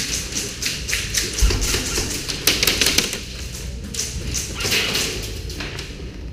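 Airsoft guns firing in rapid bursts, a quick run of sharp clicking shots, densest and loudest about halfway through.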